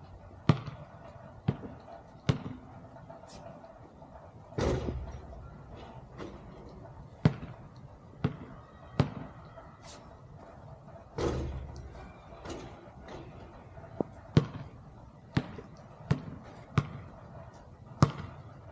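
Basketball bouncing, a dozen or so sharp separate impacts at an irregular pace. Two longer, louder thuds that trail off come about 4.5 and 11 seconds in.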